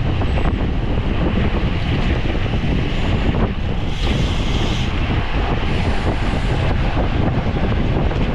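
Wind rushing over the microphone of a camera on a bicycle at racing speed: a steady, loud rumble with no break.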